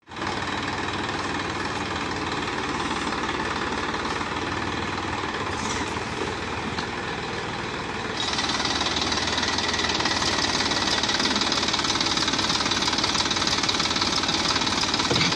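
Massey Ferguson 241 DI tractor's three-cylinder diesel engine running close by under load as it pulls a plank leveller over the sown field. It gets louder about eight seconds in.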